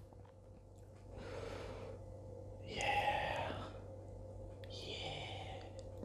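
A man breathing out heavily three times, about two seconds apart, the middle breath the loudest.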